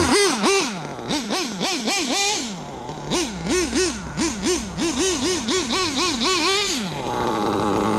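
Dynamite .28 big block nitro engine in an RC rally car, revved in quick throttle blips, its pitch rising and falling about twice a second and faster toward the end. About seven seconds in it settles to a lower, steadier run.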